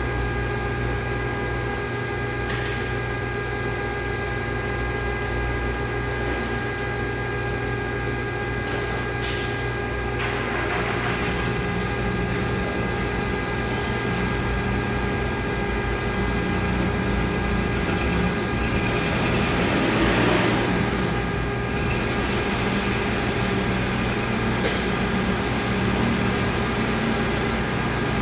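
Steady machine hum with a constant whine of several tones, from the Omax waterjet's pump running. A rushing swell of noise rises about ten seconds in and again, louder, about twenty seconds in.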